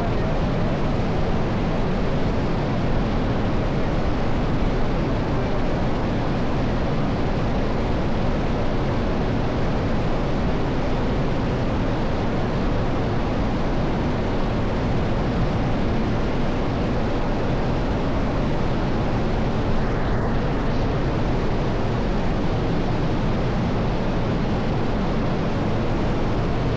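Waterfall: the steady, unbroken rush of a large volume of falling water.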